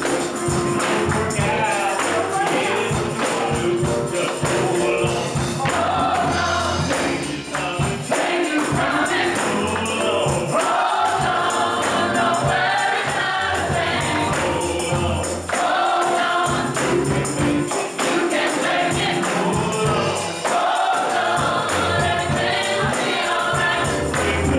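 Gospel choir singing with a tambourine jingling along in rhythm, steadily throughout.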